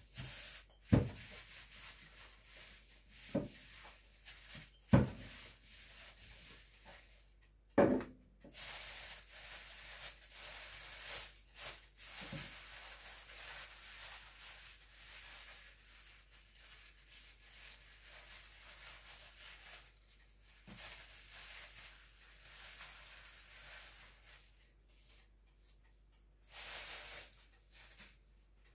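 Plastic bag crinkling and rubbing as dough is rolled out inside it with a glass bottle on a worktop, with a few sharp knocks in the first several seconds.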